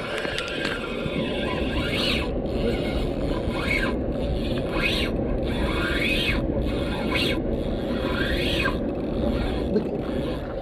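Fishing reel under load while a big fish is being fought: repeated rasping, whining surges about every second and a half, each rising and then falling in pitch. A steady low rumble runs underneath.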